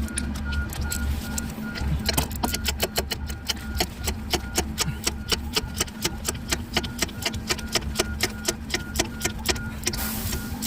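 Socket ratchet on an extension clicking in a fast, even run of about five or six clicks a second as it tightens the turbo mounting nuts.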